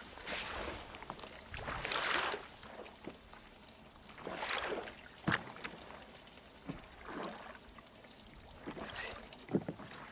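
Sea water lapping and splashing at the side of a small wooden fishing boat, in irregular bursts every second or two, with one sharper hit about five seconds in.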